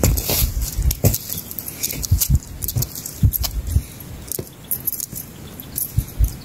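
A short-handled hand hoe chopping into dry, grassy soil in irregular thuds, with crackling and rustling of dry grass and earth as a hand works the loosened ground.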